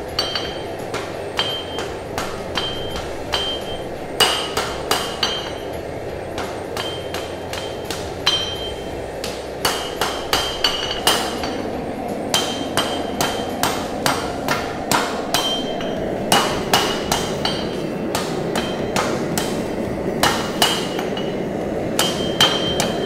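Hand hammer striking a red-hot 1095 high-carbon steel knife blank on an anvil, forging the blade's tip: a steady, slightly irregular run of blows, about two a second and sometimes in quick pairs, each with a brief metallic ring. A steady low rushing sound runs underneath.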